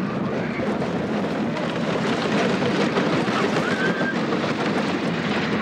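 Roller coaster train running along its track: a steady loud rumble and rattle, with wind rushing over the microphone.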